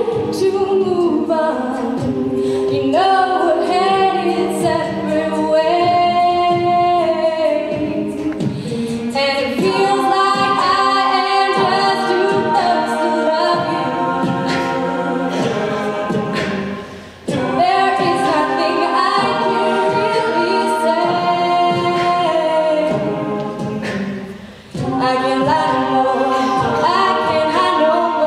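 A cappella choir singing live: a soloist over layered backing voices, with a steady beat underneath. The sound dips out briefly twice in the second half.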